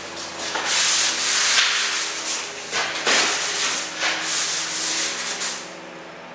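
Airless paint spray gun hissing as it sprays water-based enamel onto a window frame, in several long trigger pulls with a short break about three seconds in, stopping near the end.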